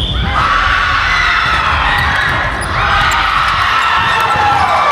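Indoor volleyball play: shoes squeak repeatedly on the court floor and the ball is struck several times, in an echoing sports hall.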